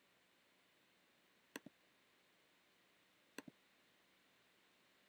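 Two clicks of a computer's pointing-device button, each a press and a release a tenth of a second apart, the pairs about two seconds apart, over faint hiss.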